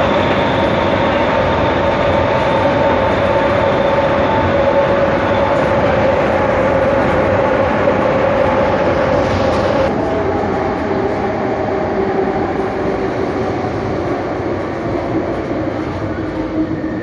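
Inside an SNCF Z5300 electric multiple unit under way: steady whine of the traction motors and gearing over running and rail noise. About ten seconds in the power drops off and the whine slides down in pitch as the train slows.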